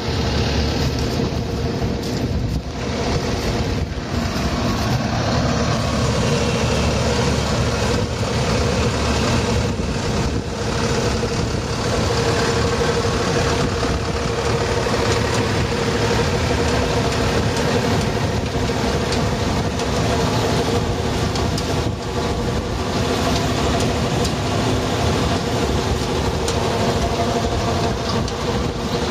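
Tractor-mounted Fontana RF3 green bean harvester working in the field: the tractor engine and the harvester's picking mechanism run together as a steady mechanical drone with a constant rattling clatter and a steady hum-like note.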